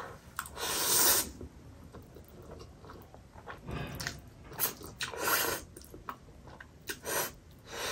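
Close-up eating sounds: spicy Buldak ramen noodles slurped off a fork and chewed. There are wet slurps about a second in and a run of them in the second half.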